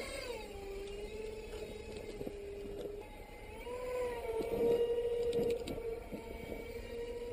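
RC pusher plane's motor and propeller whining in flight as one steady pitched tone. The pitch drops at the start, rises again about four seconds in, then holds steady.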